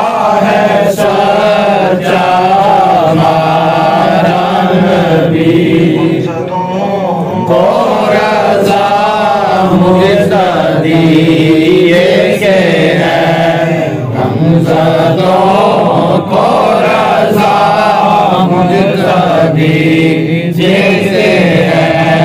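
A voice chanting a slow devotional melody, its pitch wavering in long ornamented phrases over a steady low drone.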